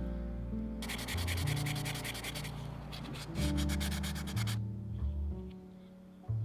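Two runs of rapid abrasive rubbing strokes, as in sanding, each about a second and a half long with a short break between, over background music with chords and a bass line.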